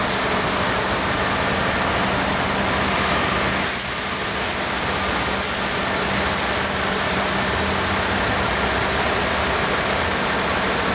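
Truck wash spray jets hissing steadily against a Mack dump truck, with the truck's diesel engine running underneath as a low steady hum.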